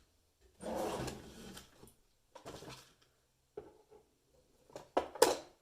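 Handling noises at a workbench: a rustling scrape lasting about a second, a shorter one, then a few sharp clicks and knocks near the end as something is picked up and set down.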